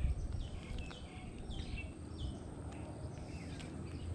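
Small birds chirping: a quick series of short, separate calls over a steady low rumble of wind on the microphone.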